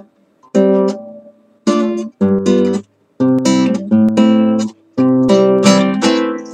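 Acoustic guitar strummed one chord at a time, each chord left to ring, in short groups with brief breaks between them.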